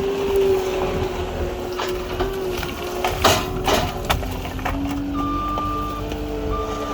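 Skid steer engine and hydraulics running, the engine pitch shifting as it works, with a few sharp knocks a little past the middle. A higher whine comes on and off near the end.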